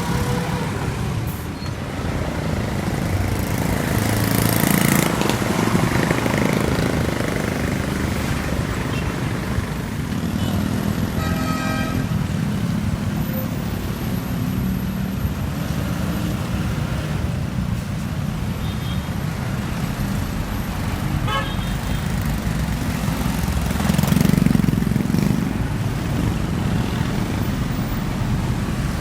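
Street traffic with heavy vehicle engines running steadily, swelling twice as vehicles pass close by, and short horn toots around the middle.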